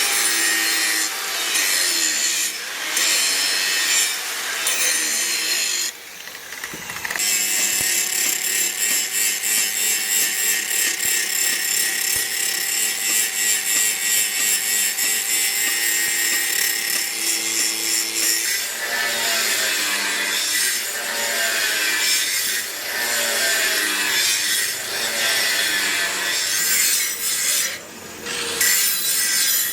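Steady back-and-forth rasping strokes of a hand saw or file working a piece, at about two strokes a second through the middle, with a brief pause about six seconds in.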